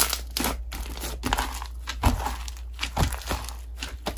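Hands squeezing and stretching a fluffy white-and-pink slime, giving irregular crackling, squishing clicks as air pockets in it pop.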